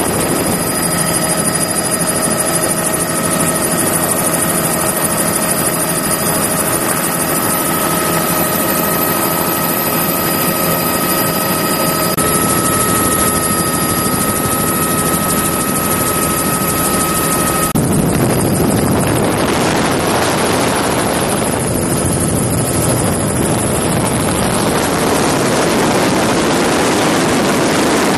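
Helicopter engine and rotor noise, heard from on board, loud and steady with a constant whine over a rushing roar. About eighteen seconds in the whine drops out and a rougher rushing noise carries on.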